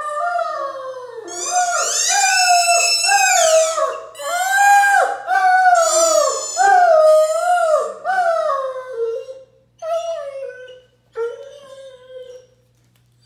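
Harlequin Great Dane howling: a long run of wavering calls that rise and fall, one straight after another. Near the end they break into a few shorter, quieter howls.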